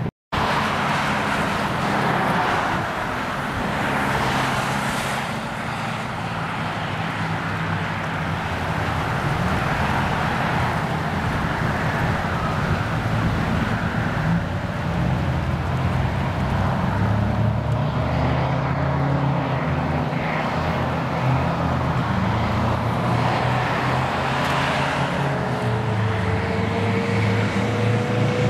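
Road traffic with the steady low drone of heavy diesel engines, growing louder near the end as fire trucks with Detroit Diesel 8V engines come down the road.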